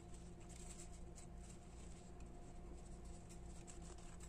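Faint rustling and soft handling noises of grosgrain ribbon being pressed and adjusted by hand, with a few light scrapes, over a steady low hum.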